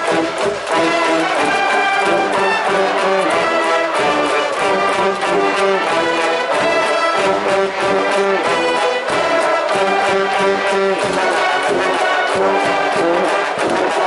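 School brass band in the ballpark stands playing a cheer song, trumpets and trombones over a steady drumbeat: the cheering music of a Japanese high school baseball game.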